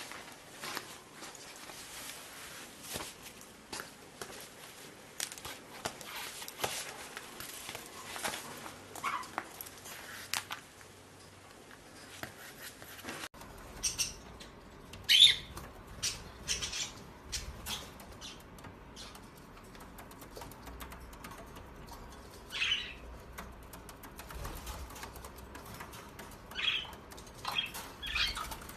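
Pet birds, with light clicking and rustling, then a few short, sharp high-pitched calls in the second half, the loudest about halfway through.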